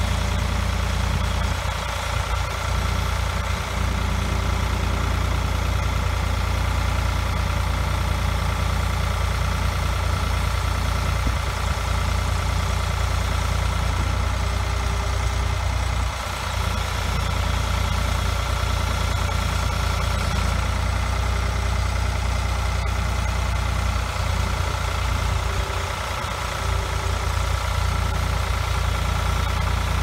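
Ford 4500 industrial backhoe's three-cylinder engine running steadily at low revs while the front loader's hydraulics lift the bucket.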